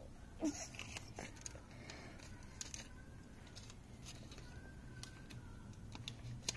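Quiet room with a low steady hum and a few faint clicks and taps from a phone being handled and moved.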